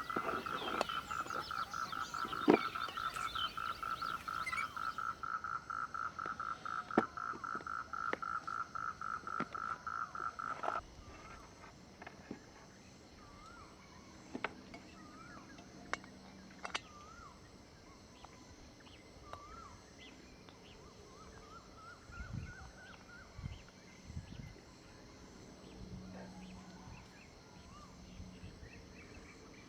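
Frog calling in a fast, steady pulsed trill that cuts off suddenly about a third of the way in. Quiet outdoor ambience follows, with a few faint wavering chirps and small clicks.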